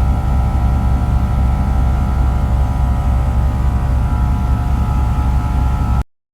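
Engine running steadily with a low, pulsing rumble and a steady whine over it; the sound cuts off suddenly about six seconds in.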